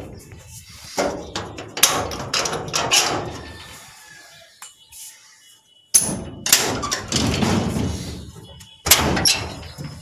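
A door being unbolted and opened: metal bolts and latches clacking, with knocks and thuds against the wooden door and frame. The clatter comes in two bursts with a quieter pause in the middle.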